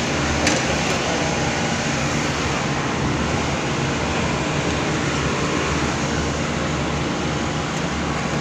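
Steady rain, heard from under an umbrella, with a low steady hum underneath.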